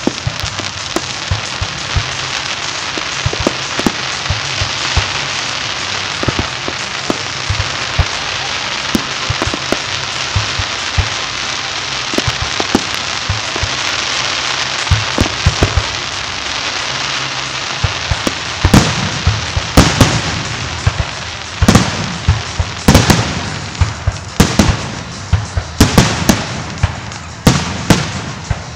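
Fireworks finale: a dense, steady crackle of many small reports at first, giving way about two-thirds of the way through to loud shell bursts going off in quick succession, several a second.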